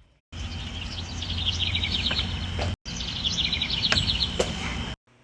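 Birds chirping in quick trills over a steady low rumble of outdoor background noise, heard as two near-identical stretches that each start and stop abruptly.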